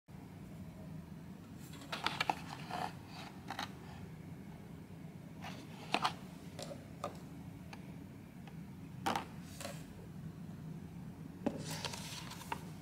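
A clear plastic takeout sushi container and a cup of instant noodles being handled on a table: scattered crackles and clicks of plastic, in four short clusters, over a steady low hum.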